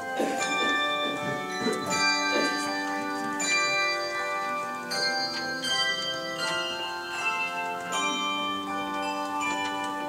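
Hand bell choir playing: handbells struck in melody and chords, a new note or chord every half second or so, each ringing on and overlapping the next.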